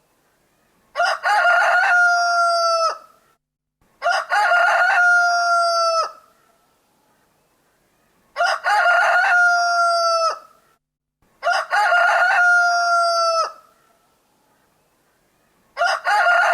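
Rooster crowing five times, each cock-a-doodle-doo about two seconds long, ending in a long held note that drops away. The crows come about every three to four seconds with silence between, and the fifth is still going at the end.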